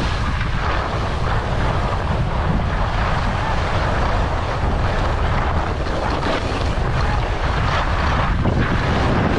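Wind rushing and rumbling over the microphone while skiing downhill, with the skis sliding over the snow in a steady hiss.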